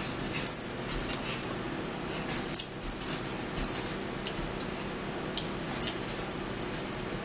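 Eating sounds close to the microphone: chewing and mouth smacks with a few light clicks of a fork, coming in short bunches, most of them in the middle, over a steady low hum.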